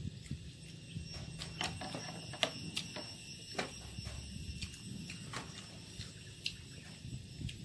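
Close-miked eating of chewy boiled buffalo skin: wet chewing with irregular mouth clicks and lip smacks. A faint steady high-pitched tone runs under it.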